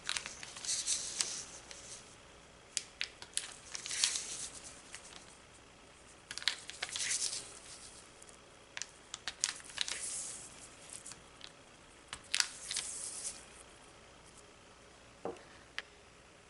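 Model rocket parachute crinkling and rustling as holes are punched through the tape discs on it, in five or so bursts with sharp pops and clicks, and a single knock near the end.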